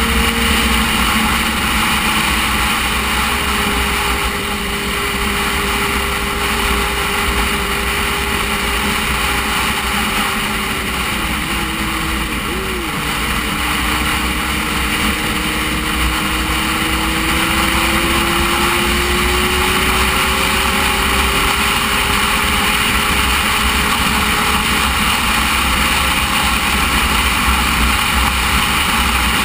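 Motorcycle riding at a steady road speed, its engine tone held under loud wind rush on the camera microphone. The engine pitch dips and wavers briefly about halfway through, then climbs slowly.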